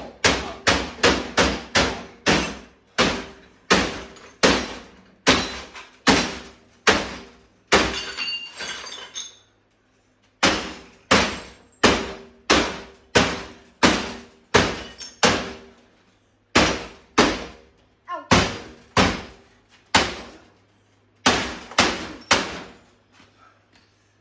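Hammer blows on a 1988 GE 26CT622 CRT television's broken cabinet and chassis, dozens of sharp strikes about two to three a second, in runs with short pauses. About eight seconds in, one strike sets off a longer crash with ringing.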